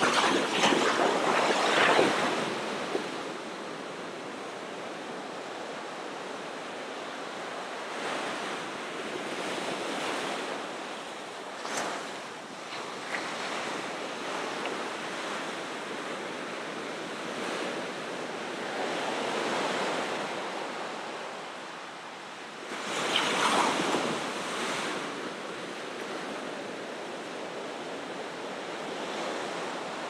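Ocean surf: waves breaking and washing in a continuous rush, with a louder break near the start and another about three quarters of the way through.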